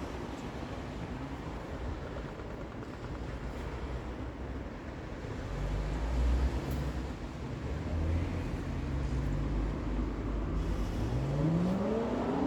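A vehicle's steady low rumble. In the last second or so a motor whine rises steadily in pitch as it speeds up.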